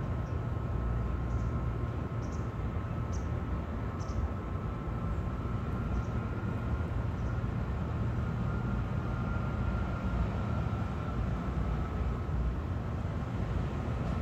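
A steady low mechanical rumble with a faint, slightly wavering high whine over it, like a running motor, and a few brief high chirps in the first few seconds.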